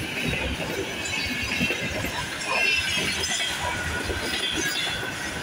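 Empty container flatcars of a freight train rolling past: a continuous rumble and irregular clatter of wheels on the rails, with high metallic squealing over it.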